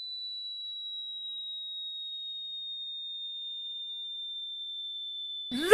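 Ear-ringing sound effect: a single high-pitched pure tone, held steady and sliding slowly down in pitch. A loud voice breaks in just before the end.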